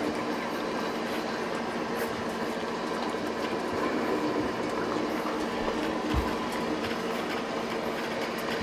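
A steady background rush of noise with a constant low hum, and one brief low thump about six seconds in.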